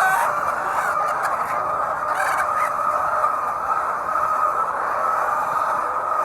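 Steady din of a large flock of hens in a poultry house, many overlapping clucks and calls blending into a continuous chorus.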